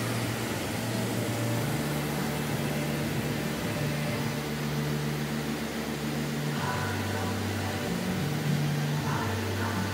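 Steady hum of a powered-on Leadwell LT25 CNC lathe, with an even hiss over it; its low droning tones step up and down in pitch several times.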